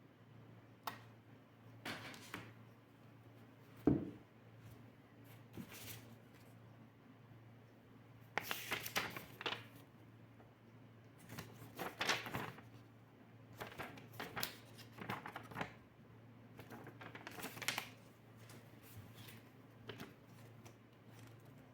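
Scattered clicks, taps and short rustles, as of small objects being handled, over a low steady hum. The strongest is a single knock about four seconds in.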